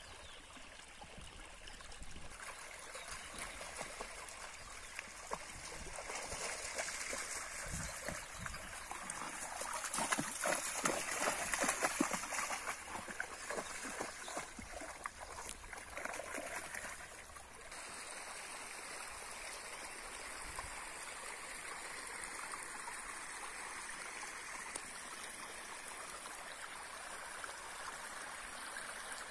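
Shallow stream trickling and gurgling over rocks. From about six seconds in, a dog splashes as it wades through the water; this stops abruptly after about seventeen seconds and the steady trickle goes on.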